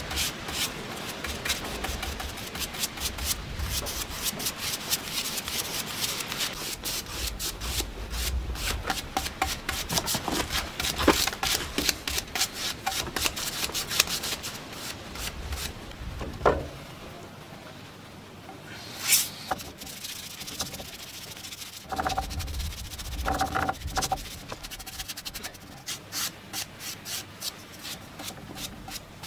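A paintbrush scrubbing back and forth over a rough wooden board as a finish is brushed on, several strokes a second. After about the first half it goes quieter, with only a few scattered scrapes and knocks.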